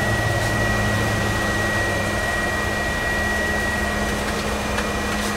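RV roof vent fan (Fan-Tastic Vent) running: a steady whir with a low hum and a thin, constant high whine.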